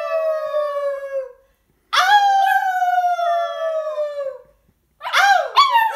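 Pomsky howling: one long howl slowly falling in pitch trails off about a second in, and a second falling howl follows for about two and a half seconds. Laughter begins near the end.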